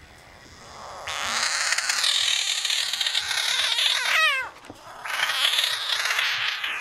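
A frog screaming: a long, loud, raspy scream that ends about four seconds in with a wavering, falling wail, then after a short break a second long scream.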